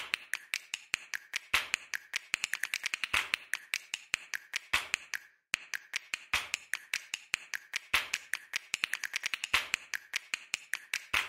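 A rapid, uneven run of sharp clicks, several a second, with a short break about five seconds in.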